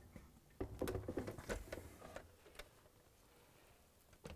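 A series of light clicks and knocks over about two seconds as a Bosch dishwasher detergent dispenser assembly is pushed into the door cutout, its metal retaining tabs snapping into place.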